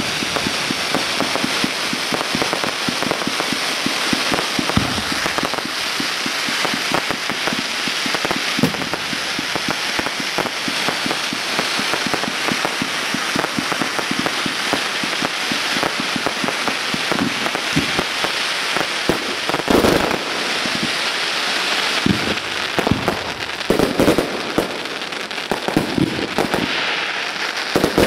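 Fireworks display: a dense, continuous run of rapid sharp pops from crackling effects, with a few louder bangs of shells bursting in the last third.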